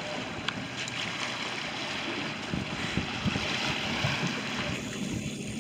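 Wind blowing across the microphone over choppy sea water washing around a small boat, with gusts buffeting the microphone more heavily from about halfway.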